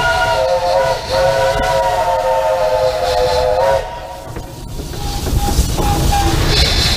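Narrow-gauge steam locomotive's chime whistle sounding a chord of several tones: one blast ends about a second in, and a second, longer blast follows and cuts off near four seconds. After it the locomotive starts to roll with a low rumble.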